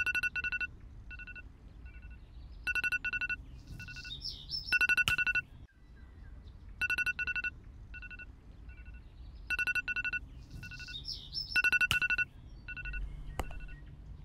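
Smartphone ringing: an electronic ringtone of short, rapid beeping notes on two pitches, the same phrase coming round about every seven seconds.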